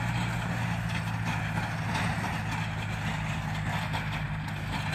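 Farm tractor's diesel engine running steadily with a low hum, easing off slightly as it moves away.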